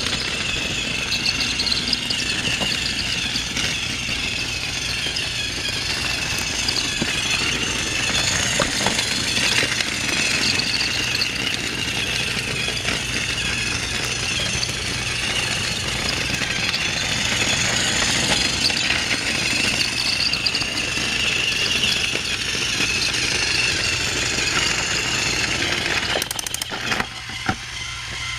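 Battery-powered Thomas & Friends toy train running on plastic track: a steady motor whir with the rattle of its wheels and trucks. A few sharp clicks come near the end.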